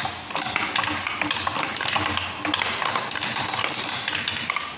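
Marbles rolling and clicking along the balsa-wood runways and wheel pockets of a homemade marble run, a dense, irregular patter of sharp taps over a steady rolling rumble.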